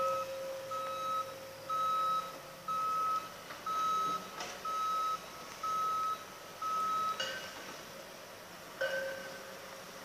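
Construction machinery's warning beeper sounding about once a second, the kind used as a reversing or travel alarm, stopping about seven seconds in. A steady lower tone runs under the beeps, and there are a few sharp clunks, the loudest near seven seconds and nine seconds.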